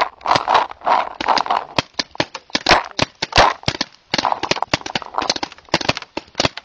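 Several paintball markers firing test shots down the field: a rapid, irregular run of sharp pops from more than one marker at once, with short gaps between volleys.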